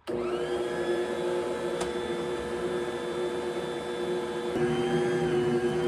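Stand mixer switched on, its motor starting suddenly and running with a steady whine as it mixes a stiff, low-hydration sourdough bagel dough. The whine changes and wavers about four and a half seconds in.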